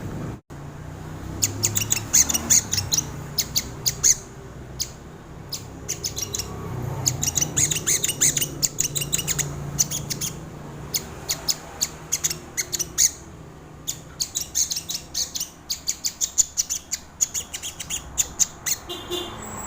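Crimson sunbird (sogon) calling: quick runs of sharp, high-pitched chips and ticking notes, coming in bursts with short pauses between them.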